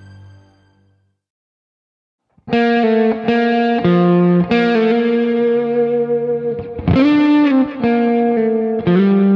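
A low, dark film-score tail fades out within the first second. After a short silence, loud music with distorted electric guitar starts about two and a half seconds in, playing held notes that shift every half second to a second.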